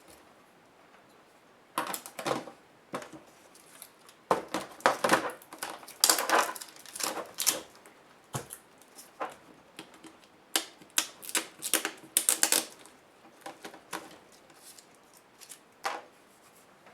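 Hand disassembly of a Compaq F700 laptop: irregular sharp clicks, snaps and short scrapes of plastic and metal parts being handled and pried. The clicks start about two seconds in and are densest in the middle.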